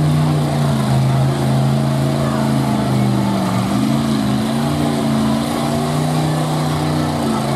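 Mega truck's engine running hard under load as it crawls through a deep mud hole, its pitch wavering slightly as the throttle changes.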